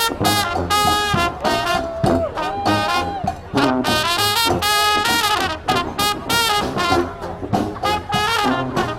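Brass street marching band playing live: trumpets and trombones playing a tune over drum hits.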